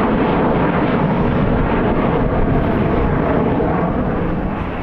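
Engines of a Spirit Airlines Airbus A320-family twin-jet airliner at takeoff power as it climbs out: a steady, loud, low rumbling roar.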